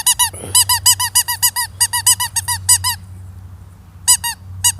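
A squeaky dog toy squeaked rapidly, about five short squeaks a second for three seconds, then a brief pause and a few more squeaks near the end.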